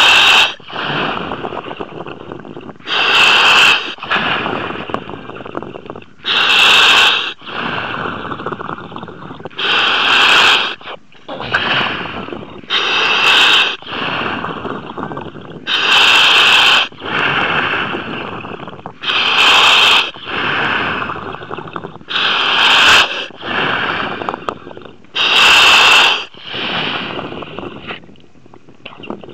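A surface-supplied diver breathing through his demand regulator, heard over the dive comms. There is a loud hiss of breath about every three seconds, with bubbling between the breaths.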